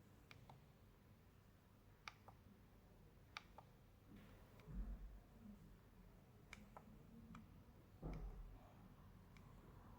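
Faint, irregular clicks from the buttons of an alarm clock bedside lamp being pressed, several coming in quick pairs, with a dull low bump about halfway through and another near the end.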